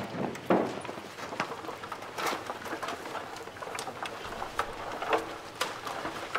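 Irregular crackling and tapping clicks over a soft, steady hiss, with no music.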